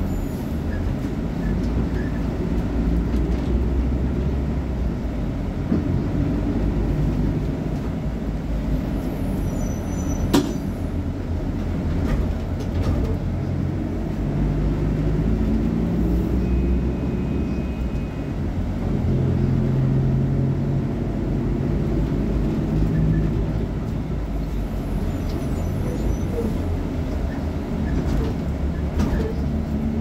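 Diesel engine of a VolksBus 17.230 OD city bus idling steadily at a standstill, a low rumble whose pitch drifts a little, with one sharp click about ten seconds in.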